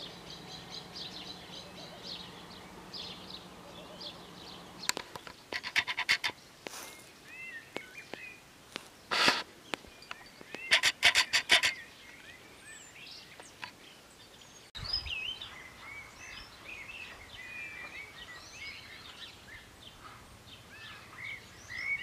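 Small birds chirping and twittering, with many short calls overlapping. In the middle come a few loud, dry, rapid rattling bursts.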